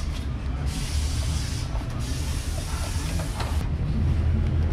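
Steady low rumble of vehicle engines and traffic, with a hiss that comes in just under a second in and cuts off sharply about a second before the end.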